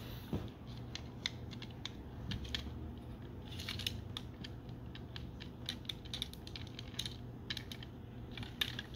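Light, irregular clicks and rattles of hard plastic as the parts of a Transformers Legacy United Sandstorm action figure are handled and worked loose.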